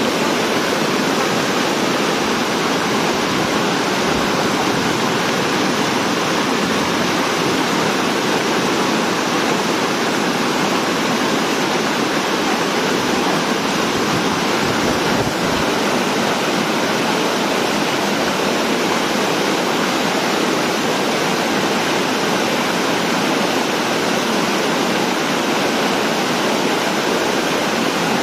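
Floodwater rushing over a low concrete dam crossing: a loud, steady, churning rush of white water.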